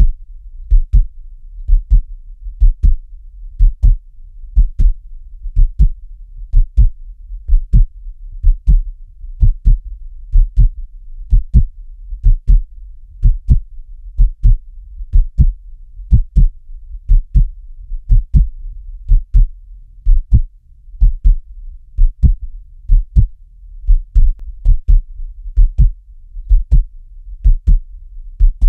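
Steady heartbeat, about one beat a second, each beat a pair of low thumps (lub-dub), over a low steady hum.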